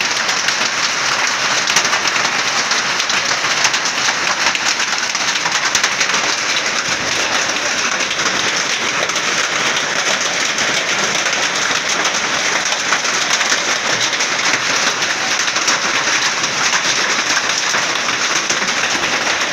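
Hail and heavy rain falling: a loud, steady hiss of countless small impacts on the ground and street.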